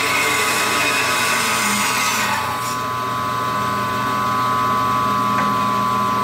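Rikon 10-326 14-inch bandsaw with a 3/16-inch blade cutting a curve through a block of wood. The cutting noise stops about two and a half seconds in, and the saw runs on freely with a steady hum and whine.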